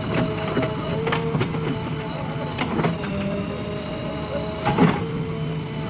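JCB 3DX backhoe loader's diesel engine running steadily with a whine over the hum, broken by irregular clanks and knocks from the machine at work, the loudest near the end.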